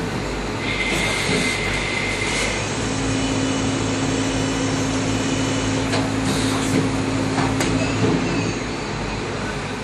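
Lathe boring inside a C45 steel workpiece with a small-diameter steel boring bar under 10-bar coolant: a steady hiss of coolant spray and machine noise over a low hum. A high whine sounds for the first couple of seconds, then a lower steady tone runs until about eight seconds in.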